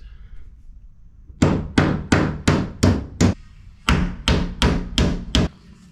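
Hand hammer driving nails into T1-11 plywood siding: two runs of sharp blows about three a second, six then five, with a short pause between.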